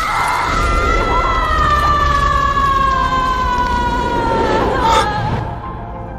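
A person's long, high scream, held for about five seconds and slowly falling in pitch, broken off by a sharp crack near the end.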